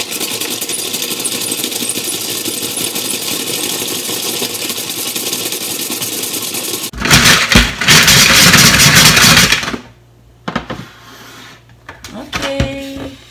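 Kakigori shaved-ice machine shaving ice cubes: a steady, dense grinding with a fast rattle for about seven seconds, louder for the next few seconds, then stopping. A few light knocks and a brief ring follow near the end.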